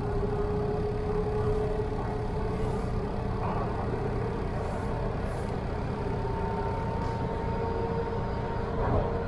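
TTC Line 2 subway train, a Bombardier T1, running at speed through a tunnel: a steady rumble of wheels on rail with a steady motor hum, and a second, higher hum joining about halfway through.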